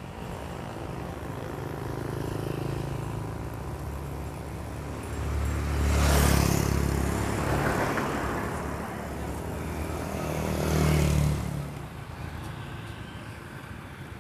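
Motor vehicles passing on a road: a steady low engine hum, with two louder pass-bys that swell and fade, one about halfway through and one a few seconds later.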